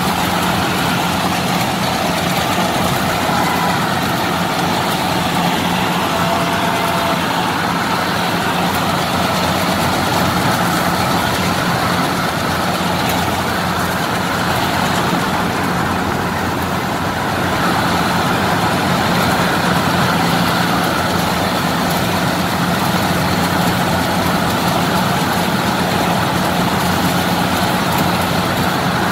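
Yanmar 82 rice combine harvester running steadily while it cuts rice, heard from the operator's seat: a constant diesel engine hum mixed with the rattle of the cutting and threshing machinery.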